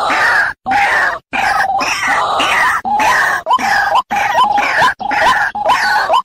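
White-breasted waterhen calling loudly, the female's call to a male: at first a dense run of overlapping harsh notes, broken twice by sudden short silences, then from about halfway a quick regular series of short notes that each end in an upward flick, about two a second.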